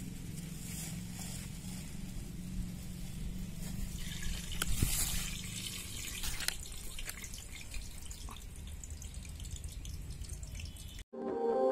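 Low background rumble with scattered small clicks and drip-like ticks and a brief hiss about five seconds in. Soft ambient music starts near the end.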